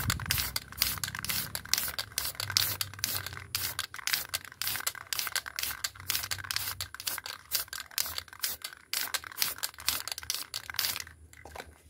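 Aerosol spray can of grey primer spraying a second coat onto a sheet-metal panel, hissing in many short, quick bursts that stop near the end.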